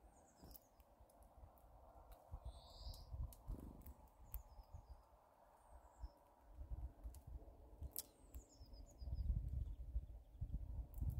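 Small birds chirping briefly now and then, with a few sharp clicks. Under them runs a low, uneven rumble that grows loudest near the end.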